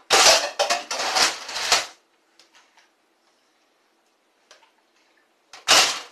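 A burst of rapid clattering, many small hard knocks, lasting about two seconds, then a few faint ticks, and another short loud clatter near the end.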